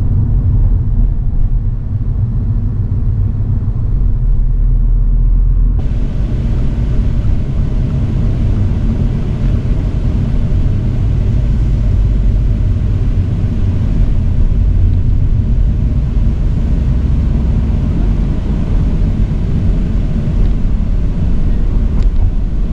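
Toyota GR86 on the move: a steady low rumble of engine and road noise. A brighter hiss joins about six seconds in.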